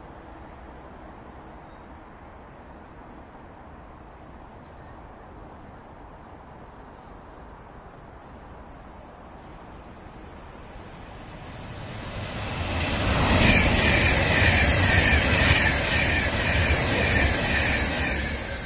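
A train passing at speed through the station: after a quiet outdoor background, a loud rush of wheel and air noise with a wavering high note builds about two-thirds of the way in, holds for several seconds, then begins to fade near the end.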